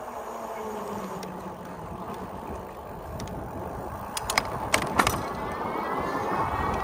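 Electric bike under way with steady wind and tyre noise; a cluster of sharp clicks and knocks about four to five seconds in, then the motor's whine rising in pitch as the bike picks up speed.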